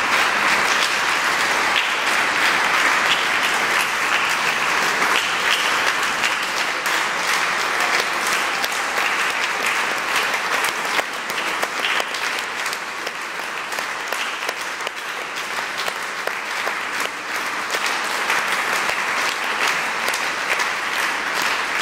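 Audience applauding, the clapping a little softer in the middle and picking up again towards the end.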